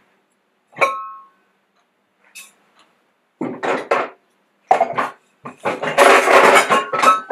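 Crockery and utensils being handled on a kitchen counter: a cup clinks once about a second in and rings briefly, then a run of clattering and knocking that grows loudest near the end.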